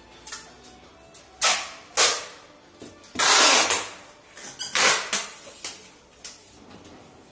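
Packing tape being pulled off the roll with loud tearing rips, two short ones, then a longer pull about three seconds in, then a couple more. The tape is stuck down across the top of a cardboard box.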